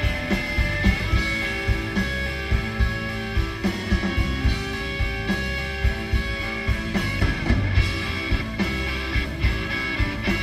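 Live rock band playing an instrumental passage: electric guitars over bass and a drum kit keeping a steady beat, as heard on an audience tape of the concert.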